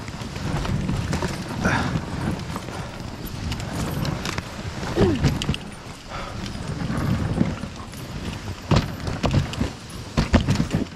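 Dog sled running on a packed snow trail: the runners hiss and scrape over the snow while a team of Canadian Inuit dogs pads along in a steady patter. A brief squeak about five seconds in and a few sharp knocks near the end.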